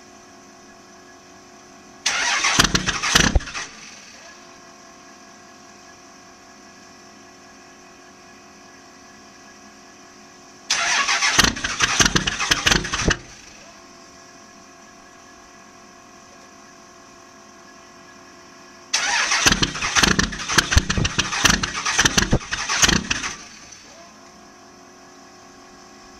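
2001 Dodge Ram's 5.9 L Cummins inline-six diesel being cranked by its starter three times, each attempt a loud, rapidly pulsing churn of a few seconds that dies away without the engine catching, with a steady hum between attempts. It is a cold start at about -5° without the block heater plugged in.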